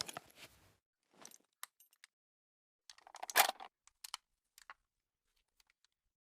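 Mechanical clicks and clacks of an SVD Dragunov rifle being handled and readied to fire, with the loudest clack about three and a half seconds in.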